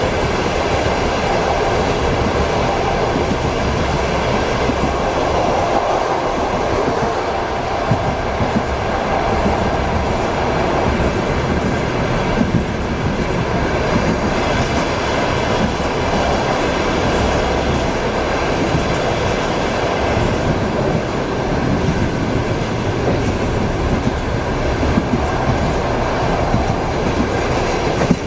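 Passenger train heard from inside a compartment car: a steady rumble of the moving carriage with the clickety-clack of wheels over rail joints.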